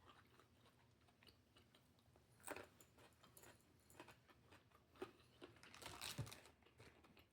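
Faint chewing and crunching of a lettuce salad, with small mouth clicks and a few louder crunches, one about two and a half seconds in and a cluster around six seconds.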